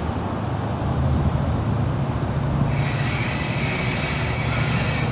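Passenger train moving away around a curve: a steady low rumble, with a high steady wheel squeal from the coaches' wheels on the curved rail starting a little over halfway in.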